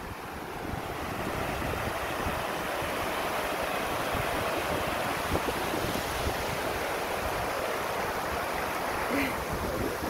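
Water of a waterfall rushing over the rock lip of the fall in a steady, even rush that swells a little in the first second, with some wind buffeting the microphone.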